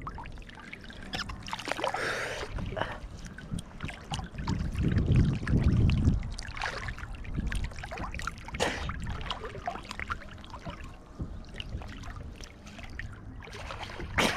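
Shallow seawater splashing and sloshing with irregular knocks and handling noise, swelling louder for a moment around five seconds in.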